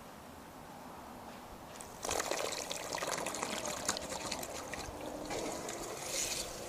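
Zodiac Vortex 1 robotic pool cleaner at the water surface: splashing and trickling water starts suddenly about two seconds in and goes on, with a faint steady hum of its pump motor underneath.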